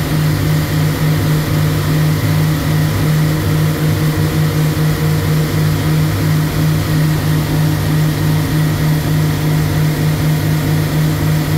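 Passenger boat's engine running at a steady cruise, heard from on board as a constant low drone with a faint hiss of water and air.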